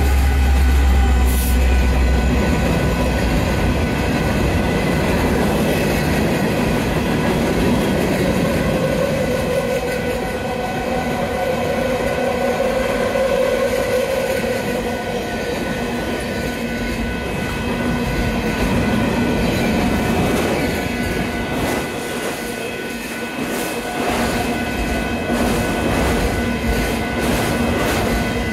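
Union Pacific mixed freight train rolling past close by. The lead diesel locomotive's deep engine rumble fades in the first couple of seconds, then comes the steady rumble and clatter of freight cars (hoppers, tank cars and autoracks) on the rails, with rhythmic wheel clicks near the end.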